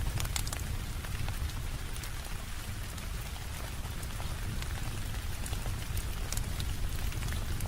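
Steady rain with a constant hiss and a deep low rumble, mixed with a wood fire in a fireplace giving scattered sharp crackles, which come thickest in the first second and near the end.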